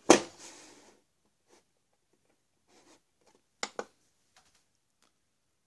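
A plastic digital postal scale set down on a wooden table with a sharp knock that rattles briefly, then two quick clicks from its on/off button being pressed about three and a half seconds later.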